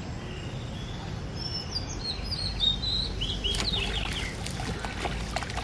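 Birds chirping, a quick run of short calls in the middle, over a steady low background rumble.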